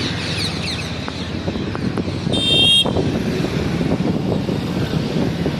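Road traffic noise from a moving vehicle, a steady rumble, with a short horn beep about two and a half seconds in.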